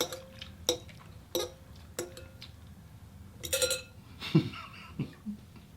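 A utensil clinking against a bowl: four ringing taps about two-thirds of a second apart, then a short clatter about three and a half seconds in.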